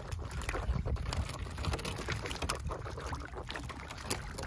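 Sea water splashing and pattering around a long-handled dip net as it is swung and plunged into the sea, with many small drips and splashes over a steady low rumble.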